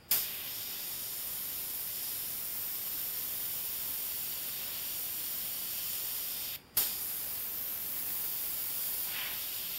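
Airbrush spraying black paint along masked panel lines: a steady hiss of air and paint that starts sharply, cuts out briefly about two-thirds of the way through, and starts again with a short burst.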